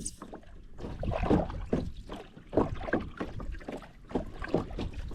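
Water splashing and knocking against a kayak, in irregular strokes about one or two a second.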